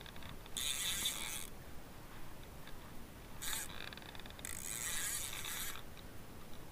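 Spinning reel being cranked on a jigging rod, giving a whirring, zipper-like sound in three spells: about a second long, a brief one midway, and just over a second near the end.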